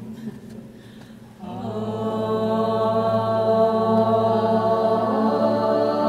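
Chanted music: a low held note with many steady overtones comes in about a second and a half in and swells, in the manner of a mantra chant.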